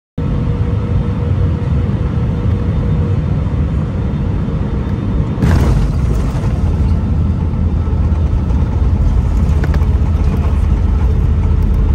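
Airbus airliner cabin noise over the wing on final approach, then a sudden bang about five and a half seconds in as the main wheels touch down hard, followed by a louder rumble of the aircraft rolling on the runway.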